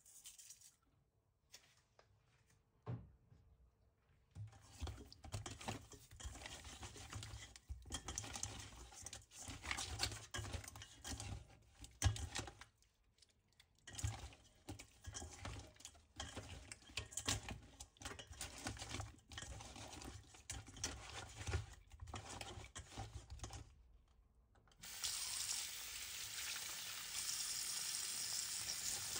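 Hands rubbing and scrubbing salted pieces of raw fish in a stainless steel bowl, an irregular wet rubbing and scraping, washing the fish with salt. About twenty-five seconds in, a tap starts and water runs steadily into the bowl.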